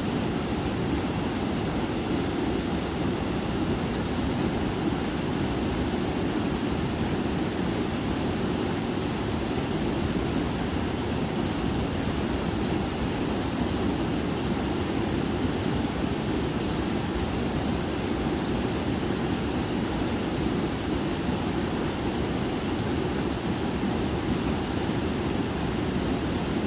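A small mountain stream rushing steadily over a little waterfall.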